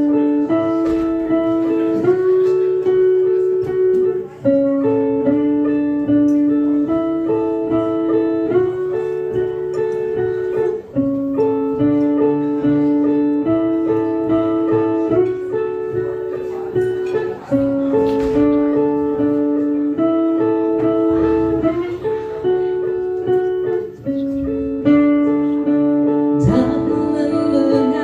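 Instrumental music: a short melodic figure of held notes repeated over and over, with a fuller sound coming in near the end.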